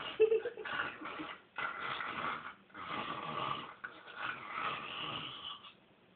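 A person snoring: a run of rasping breaths about one a second, with a short, louder snort near the start.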